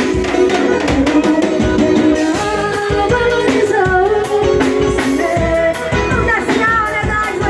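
Forró band music with a singing voice over a steady drum beat.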